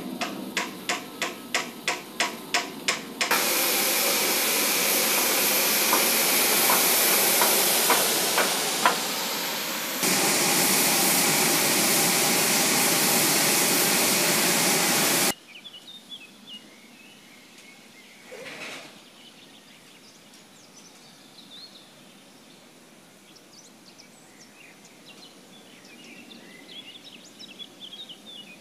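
Live-steam 5-inch-gauge model steam locomotive: a few seconds of even exhaust chuffs, about four a second, then a loud steady hiss of escaping steam for about twelve seconds that stops abruptly. After it come quiet open-air background and faint bird chirps.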